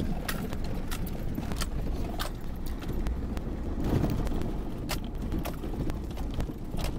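Vehicle driving slowly over a rough dirt road, heard from inside the cab: a steady low rumble with a bunch of keys jingling and clinking in irregular bursts.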